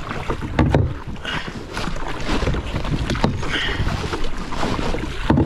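Kayak paddle blades dipping and splashing in the sea in repeated strokes, with a low wind rumble on the microphone.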